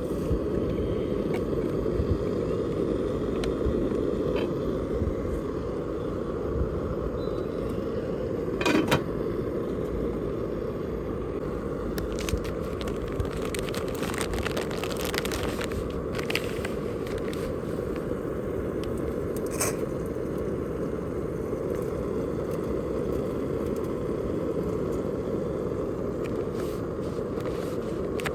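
Steady low wind and road rumble, as from riding a motorcycle, with a few scattered clicks and light crackles.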